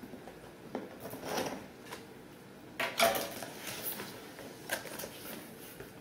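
Cardboard box being cut open and unpacked: a scissor blade scrapes through packing tape, then the cardboard flaps rustle and knock in several short swishes.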